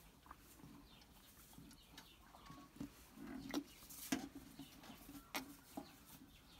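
Calf sucking and slurping milk from a bucket: irregular wet smacks and clicks, with several sharper ones in the second half.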